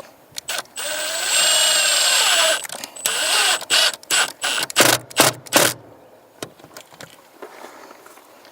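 Cordless drill driving wallboard screws: two runs of the motor, the first about a second and a half long with its pitch rising and falling under load, the second shorter. A quick series of sharp knocks follows.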